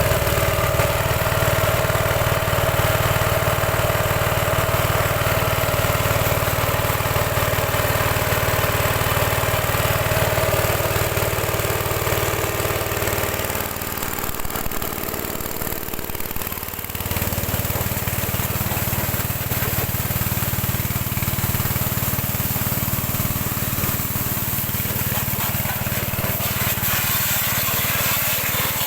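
Motoyama power sprayer running steadily. Its sound drops and thins for about three seconds partway through, then comes back steady.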